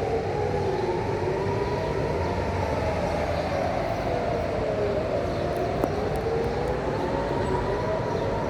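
Civil-defence air-raid sirens sounding a rising and falling wail, about one rise and fall every five seconds, with several sirens slightly out of step with one another. This is a public warning-system test during a Home Front Command drill.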